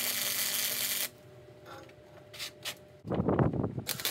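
Welder tack-welding a steel patch onto a chassis rail. The arc gives a crackling hiss for about the first second, then a few short bursts, then a louder, deeper burst about three seconds in.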